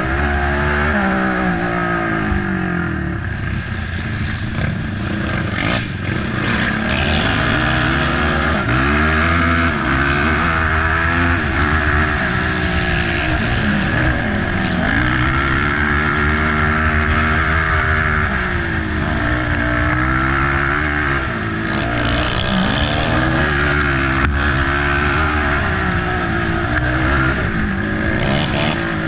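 Race ATV engine revving up and falling back over and over as the quad accelerates, shifts and slows over the course, with a few sharp knocks along the way.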